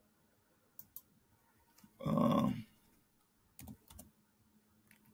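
Scattered keystrokes on a computer keyboard as a web address is typed, with one brief louder sound about two seconds in.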